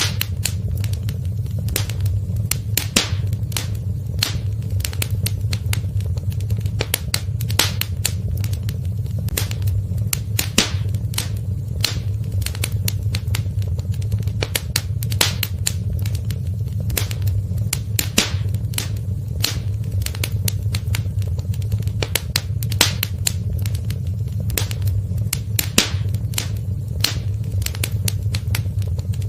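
Wood fire in a fireplace crackling, with frequent irregular sharp pops and snaps over a steady low rumble of the burning logs.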